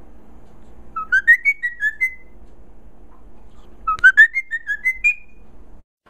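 Cockatiel whistling the same short tune twice, a few seconds apart: each phrase is a quick rising run of notes followed by a few short stepped notes.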